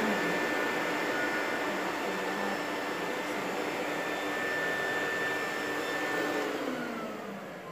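Rainbow water-filter vacuum cleaner running with a steady whirring hum. Near the end its pitch slides down and it fades as the motor winds down.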